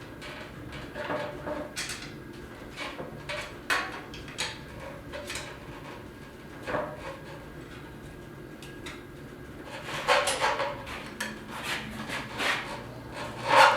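Scattered knocks, taps and scraping as a motorcycle fuel tank is worked down onto its rubber mounts with a screwdriver, coming thicker and faster in the last few seconds.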